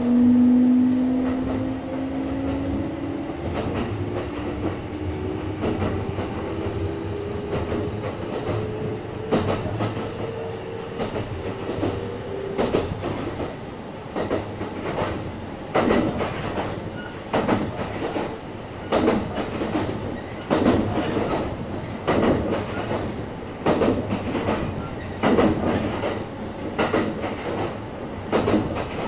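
Kintetsu 1031 series electric train heard from inside the car: the traction-motor whine rises slowly in pitch as the train gathers speed, then fades out about twelve seconds in. The wheels then clatter over rail joints in paired clicks about every second and a half.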